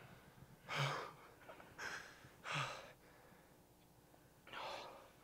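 A person breathing hard close to the microphone: four loud, breathy breaths, irregularly spaced, two of them with a slight voiced grunt.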